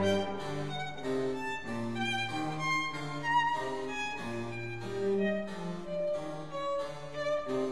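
Background music: a violin playing a melody of short notes over lower accompanying notes.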